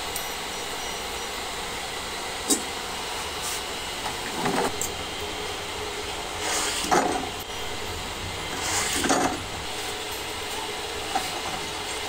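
Steady mechanical hiss of workshop machinery, with a sharp click about two and a half seconds in and three louder swells of hiss spaced about two seconds apart after that.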